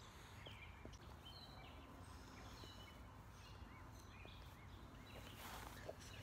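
Quiet backyard ambience: faint, scattered bird chirps and short calls over a low steady background hum, with a brief rustle near the end.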